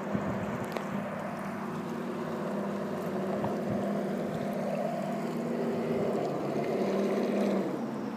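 Motor of a radio-controlled model lifeboat running steadily with a humming whine, getting louder as the boat comes close, then easing off shortly before the end.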